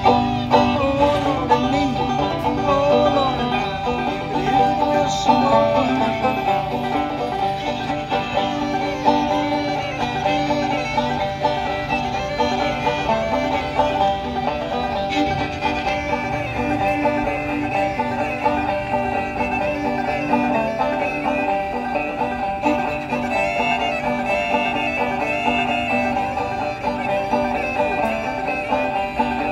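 Old-time bluegrass instrumental played live on banjo and fiddle, the banjo picking briskly under a wavering fiddle melody.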